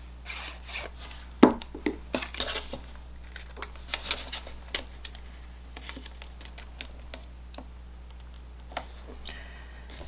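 A tape-runner adhesive being run along the edge of a cardstock panel, then the card stock handled and pressed down onto the card base. It comes across as a string of irregular clicks, taps and paper rubbing, loudest about a second and a half in, thinning out after about five seconds with one more tap near the end.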